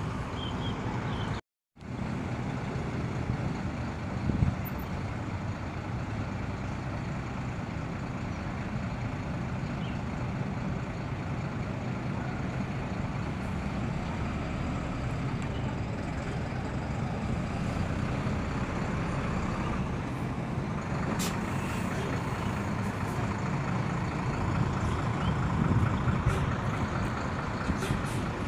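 Diesel engine of a Hino coach bus running steadily as the bus moves past close by, the rumble growing a little louder near the end. The sound cuts out for a moment about a second and a half in.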